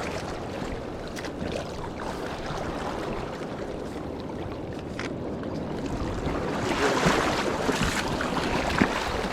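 Steady rush of river water mixed with wind on the microphone, swelling a little about seven seconds in, with a few faint clicks.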